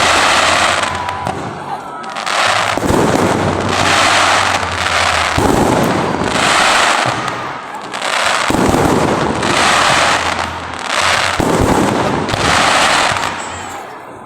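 Fireworks salute going off: loud bursts one after another, roughly every one to two seconds, the last dying away near the end.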